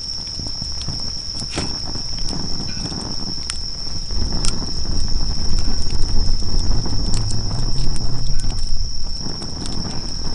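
Wood campfire crackling with scattered sharp pops, over a steady high-pitched insect trill and a low rumble that grows louder about four seconds in.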